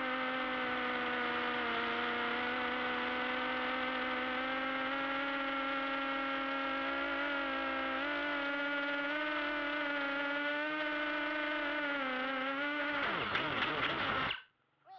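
Motors and propellers of a Vortex-clone FPV racing quadcopter, heard from its onboard camera: a steady whir at one pitch that wavers slightly. Near the end the sound changes with a few clicks, then cuts off suddenly.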